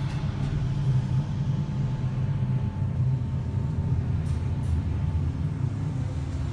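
Hydraulic passenger elevator car in motion: a steady low hum with a faint thin tone above it and a couple of light clicks about four seconds in.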